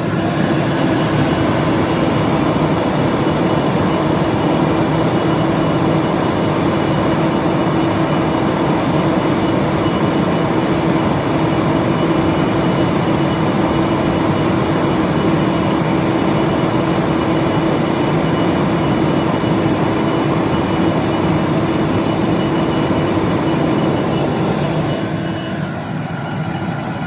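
Vacuum cleaner running steadily at full power: a constant motor hum and high whine over the rush of air, easing off slightly near the end.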